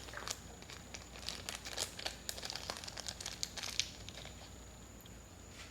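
Plastic packaging crinkling and crackling as it is handled and opened, a quick run of small crackles that dies away about four seconds in.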